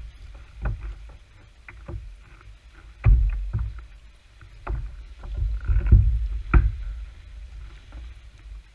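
Water splashing and lapping against a plastic sit-on-top kayak as a hand dips and moves in the water beside the hull, with irregular knocks on the hull and a low rumble.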